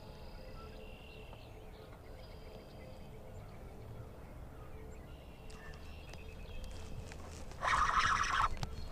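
Riverside outdoor ambience: a low steady rumble with a few thin, high whistling calls. About two seconds before the end, a much louder rasping, rustling sound begins.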